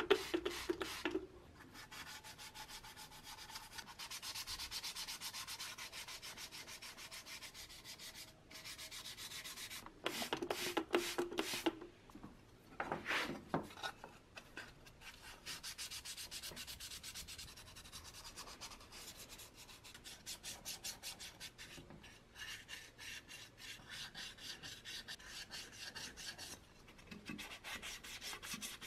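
Sandpaper rubbed by hand over small pressed-steel toy truck parts, wet-sanding the coat of paint, in quick back-and-forth strokes with spells of steadier scraping.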